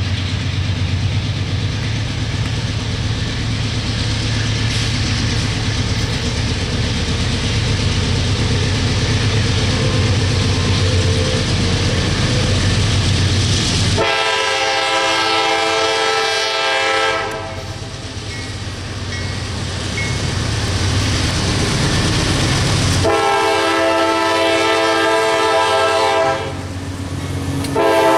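The GE diesel engines of a CSX AC44CW-led freight train rumble steadily as it approaches. About halfway through, the lead unit's Nathan K5LA five-chime horn sounds two long blasts a few seconds apart, and a short blast begins at the very end. This is the long-long-short pattern of the grade-crossing signal.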